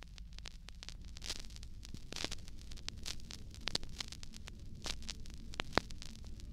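Vinyl record's silent groove between tracks: surface hiss and crackle with scattered pops, over a low steady hum and rumble.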